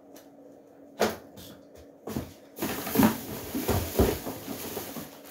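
Handling noise from items being moved about and set down: a sharp knock about a second in, then rustling with a couple of heavier thumps around three and four seconds in.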